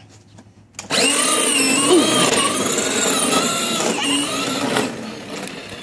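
Electric drive motors and gearboxes of a Kid Trax Dodge Viper ride-on toy car, running on a 12-volt battery instead of the stock 6-volt one, whining as the car sets off about a second in, the pitch wavering up and down with speed. The whine drops in level near the end as the car pulls away.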